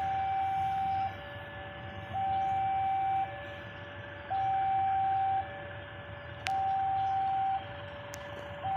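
Railway level-crossing warning alarm sounding for an approaching train: two electronic tones alternating high and low, each held about a second, the higher one louder. Two short sharp clicks come near the end.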